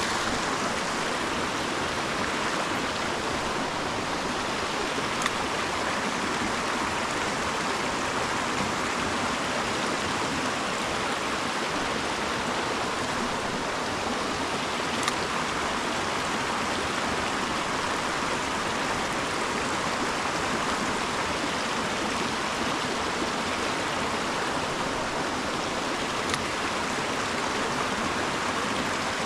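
Stream water running over rocks: a steady, even rushing, with a few faint clicks.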